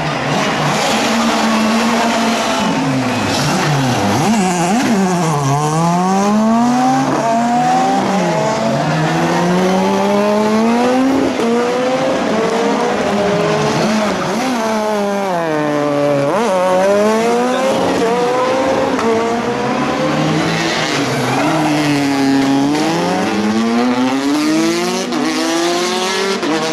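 Rally car engines revving hard, climbing and dropping in pitch over and over as the cars are driven through gear changes and slides, with tyres squealing at times.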